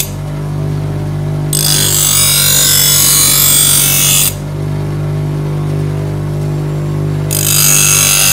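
Bench grinder motor running with a steady hum while a steel cleaver blade is held to the grinding wheel. The steel grinds harshly against the stone from about one and a half to four seconds in, stops, and starts again near the end.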